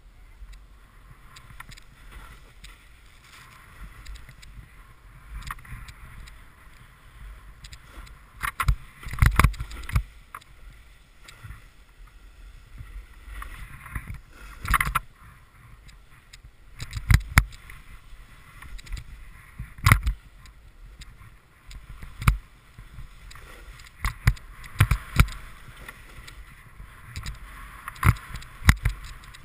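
Snowboard sliding through soft snow: a steady hiss of the board on the snow, broken by many sharp knocks and thumps as it rides over bumps, the loudest about nine, fifteen and twenty seconds in.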